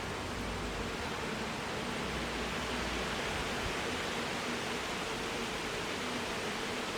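Honey bees buzzing around an opened hive during an inspection: a steady hum under an even hiss.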